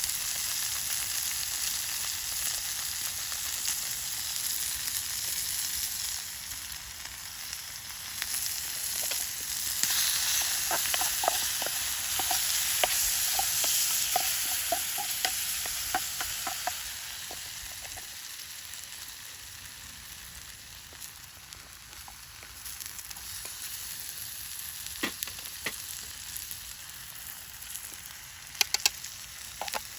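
Food sizzling in a frying pan, a steady hiss. A run of short clicks from a utensil stirring in the pan comes in the middle, and a few sharp taps near the end.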